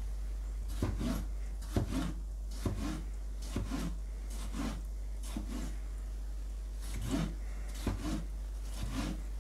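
Japanese nakiri knife slicing through tomatoes, the blade knocking on the cutting board about once a second with soft cutting sounds between, over a steady low hum. It is a tomato slicing test of the edge after heavy use on carrots and the board.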